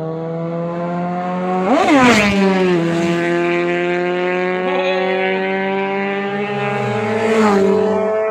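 Sport motorcycle engines running at high revs as the bikes race past close by. The note rises and then drops sharply as a bike goes by about two seconds in, and again near the end, while other engines keep droning steadily.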